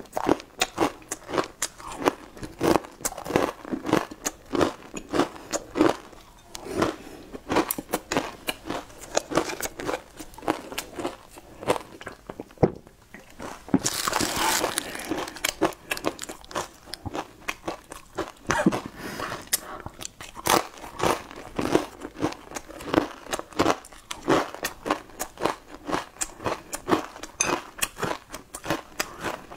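Close-up crunching and chewing of crisp, spice-coated Xinjiang flatbread pieces, about two to three crunches a second. About halfway there is a louder crackly stretch lasting a couple of seconds.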